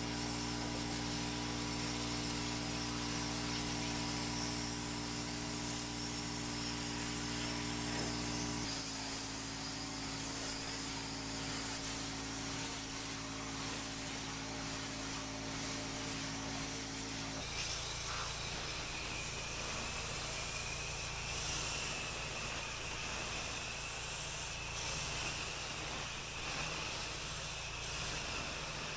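Pressure washer running: a steady machine hum under the hiss of the water spray. The hum's pitch shifts abruptly about nine seconds in, and a little past halfway it drops away, leaving the hiss of the spray.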